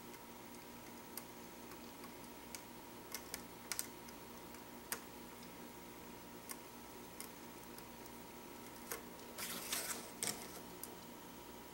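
Faint, scattered clicks and taps of small plastic toy train track pieces being handled and snapped together on a tabletop, with a brief scraping rattle near the end as pieces are pulled apart and shifted.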